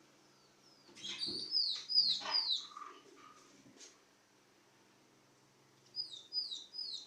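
A bird chirping: a burst of sharp, high, down-slurred chirps about a second in, then three quick falling notes near the end.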